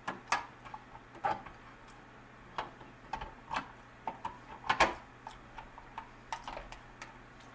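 Irregular hand-handling clicks and knocks from the interior cover and thumb turn of a Schlage keypad deadbolt as it is fitted back on and worked to test the lock. The loudest knock comes a little under five seconds in.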